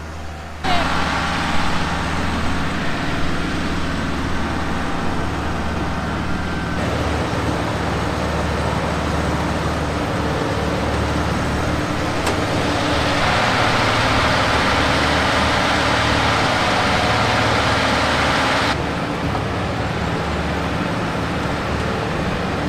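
Haybuster hay grinder grinding round hay bales: a steady engine drone under the rushing of the grinding hay. The grinding grows louder and harsher for about six seconds past the middle.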